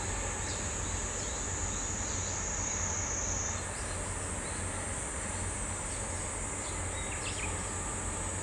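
A steady high insect buzz, stepping up a little in pitch about three and a half seconds in, over a low steady rumble, with a few faint bird chirps near the end.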